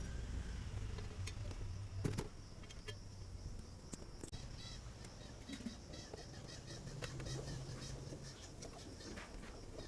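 Faint scattered clicks and taps of hands and tools working on electric geyser wiring, one sharper click about two seconds in, with birds chirping in the background over a low hum.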